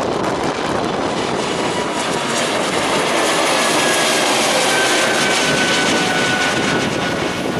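Airbus A220-300 with its two Pratt & Whitney PW1500G geared turbofans at climb thrust, passing overhead just after takeoff. A steady loud rushing jet noise carries a faint high whine that slides slowly down in pitch as the jet climbs away.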